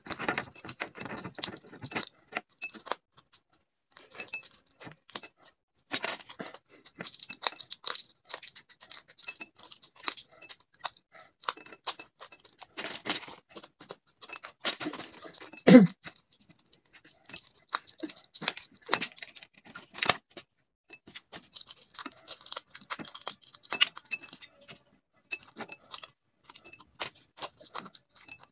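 Foil blister packs crinkling and popping as capsules are pushed out through the foil, with capsules clicking and tapping as they drop into a ceramic bowl. There is one louder knock a little past halfway.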